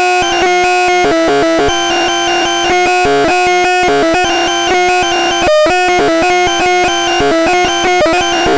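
DIY synthesizer playing a steady held tone under a fast, choppy run of electronic bleeps that jump in pitch several times a second, with brief stuttering cut-outs.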